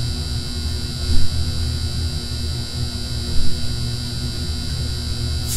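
Electrical hum and buzz of a neon sign, steady throughout, with two louder crackling flickers about a second in and again about three and a half seconds in.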